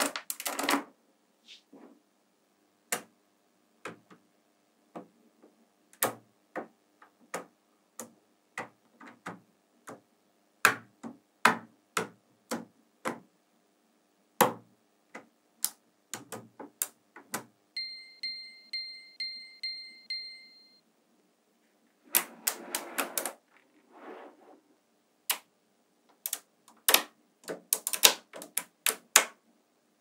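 Neodymium magnetic balls clicking as they snap together, in sharp separate clicks, with short bursts of rattling clatter near the end as whole rows settle into place. About midway a steady high tone sounds for about three seconds.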